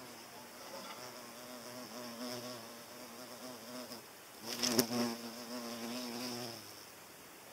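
European hornet buzzing in flight around the fruit: a low, slightly wavering drone that swells and fades as it moves closer and farther. It is loudest about four and a half seconds in, with a brief flurry of sharp clicks, and dies away about seven seconds in.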